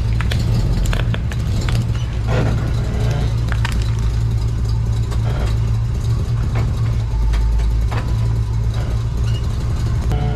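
Truck engine running steadily at low revs while its big tyre rolls over a plastic RC toy car, with scattered cracks and crunches of the toy breaking.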